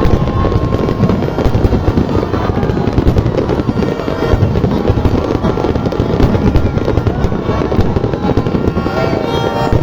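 Aerial fireworks going off in a dense, continuous run of crackling and bangs.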